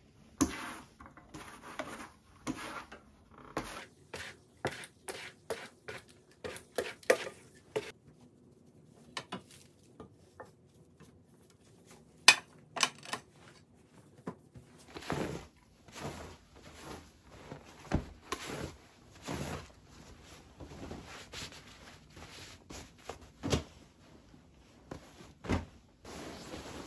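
Small items being handled and set down on a bedside table, then pillows and bedding being straightened. A run of light knocks and clicks, one sharp click about twelve seconds in, then rustling mixed with soft thumps in the second half.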